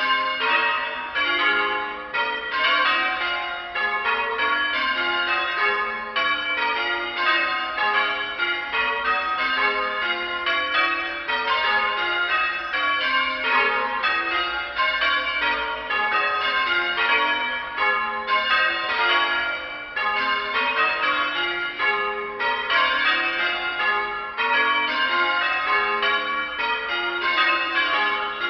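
Church bells being rung in change ringing: a steady, unbroken run of bell strokes, several a second, the bells striking one after another in shifting order.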